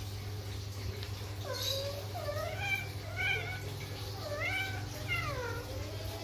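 Cat yowling during mating while in heat: about five drawn-out calls in a row, wavering up and down in pitch, starting about a second and a half in.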